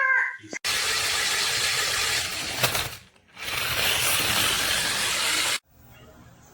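Toy RC stunt car's electric drive motors and plastic gearboxes running in two bursts of about two seconds each, with a short break between. The second burst cuts off abruptly.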